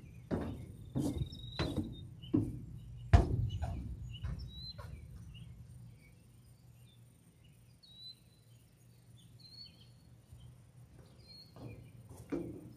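Footsteps, about one and a half a second, fade out after a few seconds and start again near the end. In between there are faint high bird chirps.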